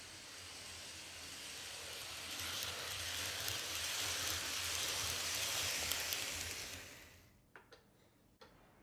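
N-scale Kato Amtrak ACS-64 locomotive and Amfleet cars running past on the track: the motor and wheels make a whirring hiss that grows louder, then fades away about seven seconds in. A couple of small clicks follow near the end.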